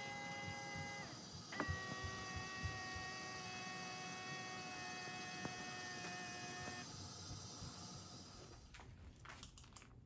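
Famree self-cleaning litter box's drum motor running with a steady whine as the litter cylinder rotates in its cleaning cycle. It slows and stops about a second in, starts again with a click, and winds down about seven seconds in, with a few soft knocks along the way.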